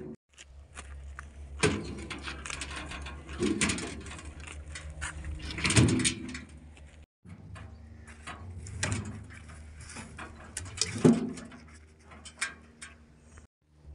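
Heavy logs being dropped and shoved into a steel trailer bed: dull wooden thuds with scraping against the metal, about six in all, over a low steady hum.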